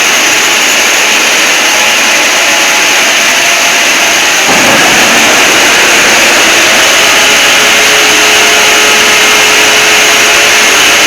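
Harsh, heavily distorted and very loud fake Emergency Alert System alarm audio, mostly dense noise with faint steady tones buried in it. It gets louder and fuller about four and a half seconds in.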